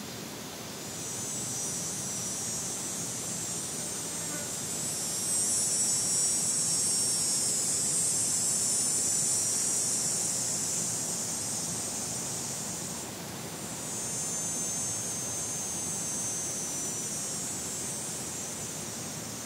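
Cicada buzzing: a long, high, steady call that swells up and breaks off about two-thirds of the way through, then a second call that starts a moment later and fades near the end.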